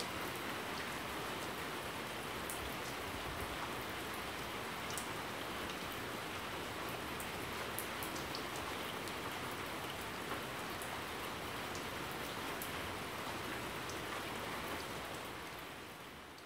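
Steady rain falling, an even hiss with scattered sharp ticks of single drops, fading down near the end.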